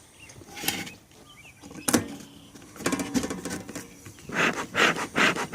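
Bee smoker's bellows squeezed several times, each puff a short whoosh of air through the pine-pellet fuel, with a sharp click near two seconds in.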